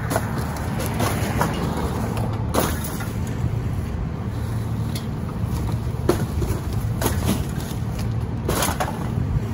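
Rear-loader garbage truck's diesel engine running steadily while garbage bags are thrown into the hopper, landing with a series of thuds and rustles of plastic.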